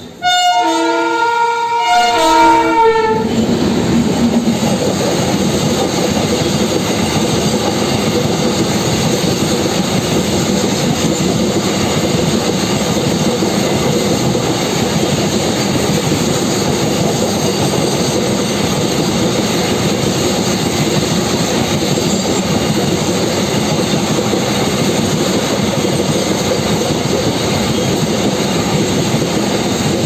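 An Indian Railways freight train of empty flat wagons rolling past on the rails, a loud, steady, dense rumble throughout. In the first three seconds, a train horn sounds in several short blasts.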